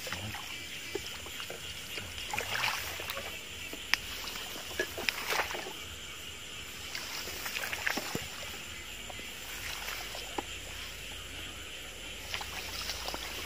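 Footsteps wading and brushing through wet grass and shallow field water, with rustles and small splashes in clusters every few seconds. A steady high chirring of night insects runs underneath.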